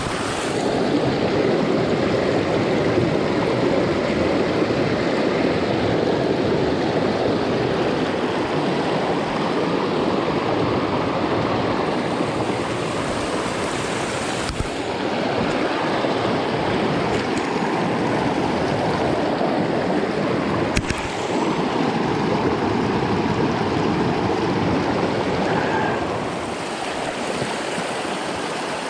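Small mountain brook rushing and splashing over boulders at close range, a steady loud wash of water. Two brief knocks sound partway through.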